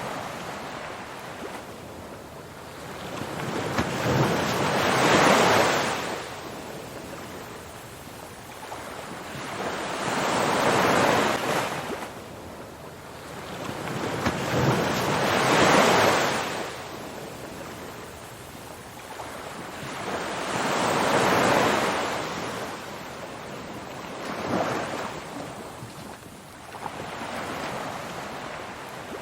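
Ocean surf as a steady hiss of noise that swells and falls back, one wave washing in about every five seconds.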